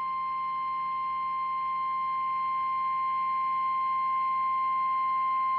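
NOAA Weather Radio 1050 Hz warning alarm tone: one steady, unbroken single-pitched tone. It signals that a warning message, here a severe thunderstorm warning, is about to be read.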